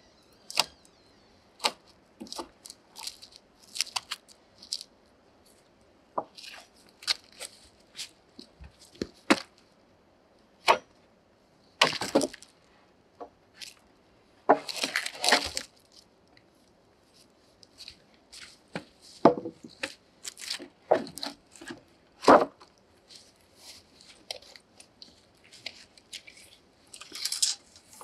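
Wooden boards knocking and clacking against each other as they are handled and shifted on a stack, in irregular single knocks, with a few longer spells of scraping and rustling.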